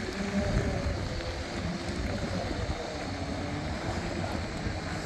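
Steady rumble of Segway tyres rolling over a gravel track, with wind on the microphone.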